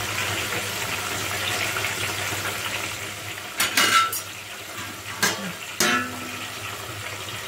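Cauliflower deep-frying in a pot of hot oil, a steady sizzle. About halfway through come a few sharp clinks and knocks.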